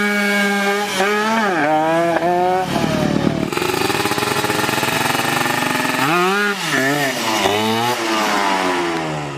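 Kawasaki Ninja drag bike engine revved in repeated blips, its pitch climbing and dropping, with a stretch of steadier running in the middle. The uploader describes the engine as coughing (batuk-batuk), that is, running rough.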